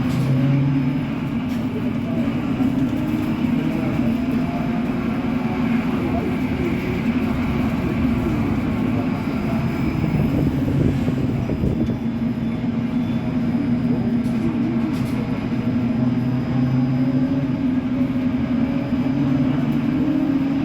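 Bus running with a steady low hum that holds even, with people's voices mixed in.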